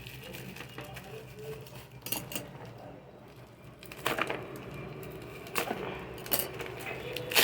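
Plastic bubble-wrap packaging pouch being handled and opened: soft rustling with a few scattered sharp crinkles and clicks.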